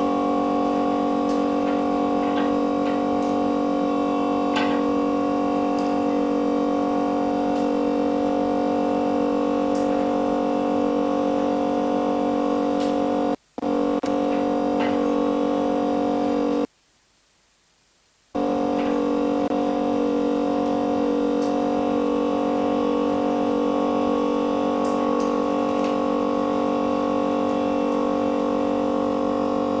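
Background music: a sustained synthesizer chord held without change, with a brief drop to near silence about 13 seconds in and a second gap of a second and a half about 17 seconds in.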